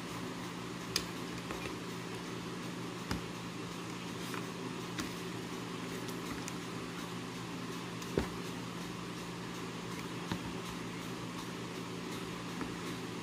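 Steady machine hum with a few light knocks and clicks from hands handling raw tilapia in vinegar marinade on a ceramic plate. The loudest knock comes about eight seconds in.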